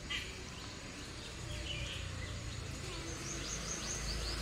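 Small birds chirping, short repeated calls over a steady low rumble of background noise; a higher trilling call joins about three seconds in.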